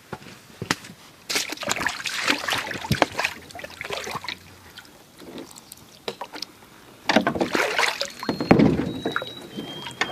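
Canoe being launched from a rocky shore: irregular knocks and scrapes of a paddle and gear against the hull, then water sloshing around the canoe as it is pushed off, loudest about seven to nine seconds in.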